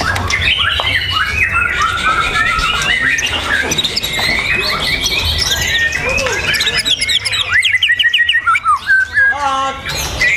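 A caged songbird singing a rapid, varied song of chirps and trills, turning near the end into quick runs of sharp repeated notes, over a low hum.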